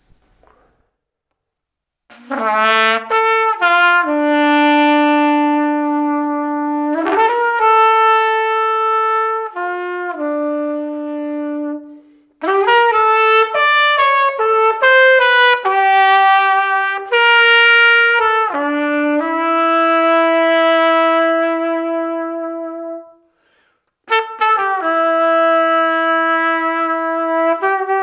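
Solo trumpet playing a slow melody in three phrases of long held notes, with short breaks between them.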